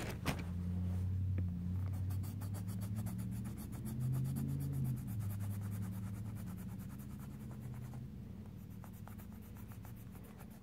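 Rapid back-and-forth colouring strokes on a colouring-book page, a quick even scratching at about eight strokes a second, over a low hum.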